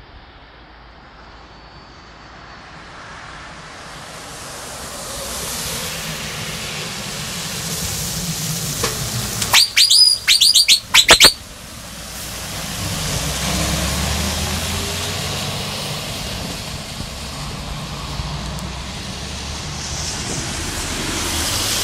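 Volvo FH truck's engine growing steadily louder, then, about ten seconds in, its aftermarket turbo whistler gives a quick run of about seven loud, high, bird-like whistles lasting under two seconds. A low diesel rumble follows.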